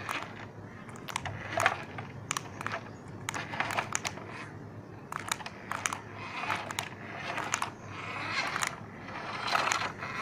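Irregular light clicks and rattles of a plastic toy truck being handled, with a few short rustling swells.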